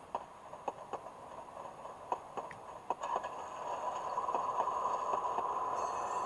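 Sound decoder of an Athearn Genesis HO-scale CA-8 caboose (Tsunami sound): scattered light clicks, then from about three seconds in a steady hum that swells and grows louder, the caboose's simulated generator.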